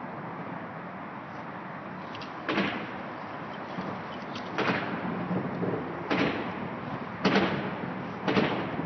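A series of dull thumps, five in all, one to two seconds apart, over a steady rushing noise.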